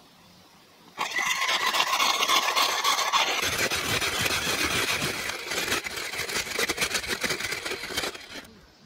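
Handheld electric ice shaver running, its blade shaving frozen canned pineapple into flakes with a loud rasping grind. It starts about a second in and stops shortly before the end.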